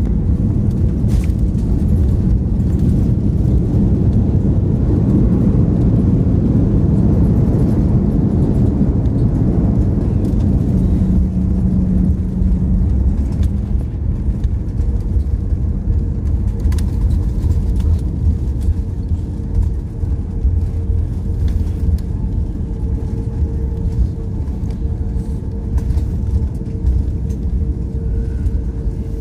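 Cabin noise of an Airbus A340-600 slowing on the runway after touchdown, its spoilers raised: a loud, steady rumble from the engines and the rolling wheels. The rumble eases after about twelve seconds as the aircraft slows, and a steady hum comes in at about the same time.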